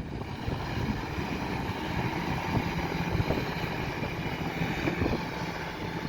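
Class 165 diesel multiple unit's underfloor diesel engines running with a steady low rumble as the train gets ready to pull out, with wind on the microphone.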